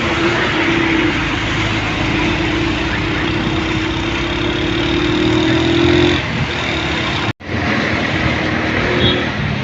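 A motor vehicle's engine running over a steady rush of road noise, its hum rising slowly in pitch and then dropping away about six seconds in. The sound cuts out for a moment about seven seconds in.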